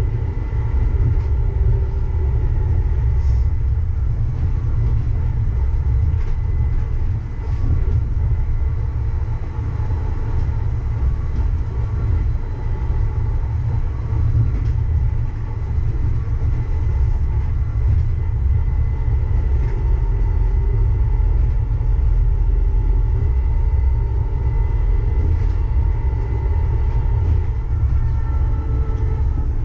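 A Uijeongbu light rail train, a rubber-tyred Siemens VAL 208, running between stations: a steady low rumble with the steady whine of the traction motors over it. Near the end the whine rises slightly in pitch.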